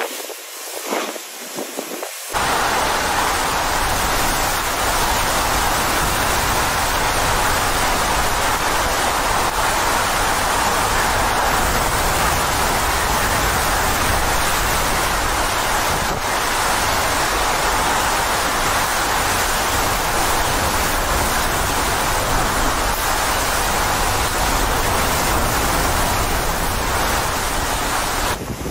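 Hurricane wind and driving rain: an even, steady rush of noise that steps up louder and fuller about two seconds in.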